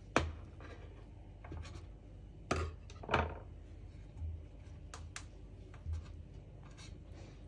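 Cake server scraping against a baking tin and cake pieces being lifted out and set on a glass plate: a sharp knock at the start, two louder scrapes about two and a half and three seconds in, then a few lighter taps and scuffs.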